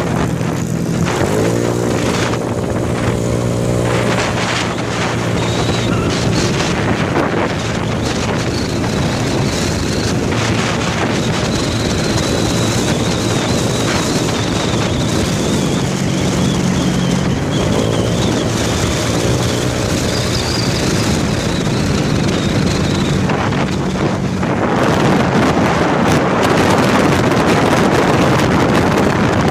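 Motorcycle engine running on the move, its pitch rising with the throttle twice, under heavy wind buffeting on a phone microphone that grows louder near the end.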